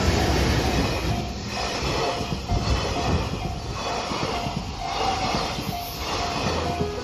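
Train running past a railway level crossing, its wheels on the rails making a loud, steady rush with some clatter, while the crossing's warning bell rings in short, evenly repeated tones.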